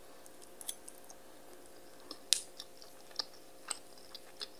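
Quiet eating: chewing and soft mouth sounds, with a few sharp clicks of metal cutlery, the loudest about halfway through.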